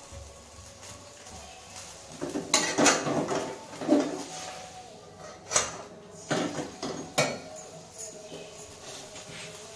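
Metal kitchenware clattering: a run of knocks and clinks of steel pots and utensils, starting about two seconds in and dying away after about seven seconds.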